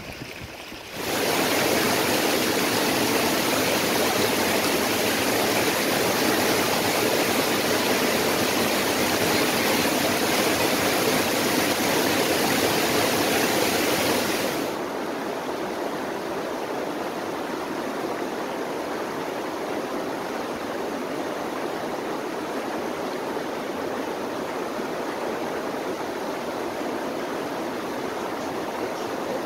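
Shallow rocky stream flowing over stones: a steady rush of running water. It drops to a softer level about halfway through.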